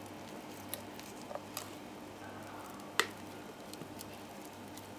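Thick sponge cake batter being spooned into a floured multicooker bowl: faint soft squishes as the dough drops, with a few light clicks and one sharper click about three seconds in.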